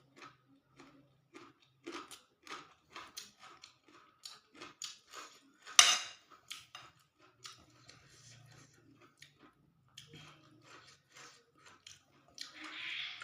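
Eating sounds: a spoon or fork clicking and scraping on a plate with chewing between, a few small clinks a second, and one much louder sharp clink about six seconds in.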